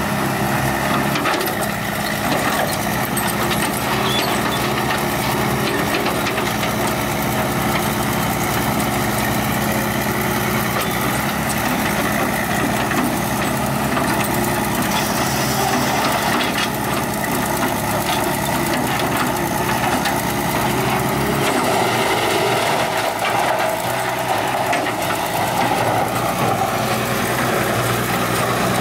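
Heavy diesel machinery running steadily: an excavator working beside a wood grinder. The low engine note changes about three-quarters of the way through.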